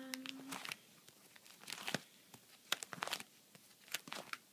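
Clear plastic binder sleeves crinkling and rustling in irregular bursts as photocard pages are turned and handled.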